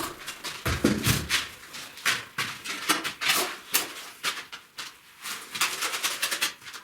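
Hand tools scraping and tapping on brick in quick, irregular short strokes.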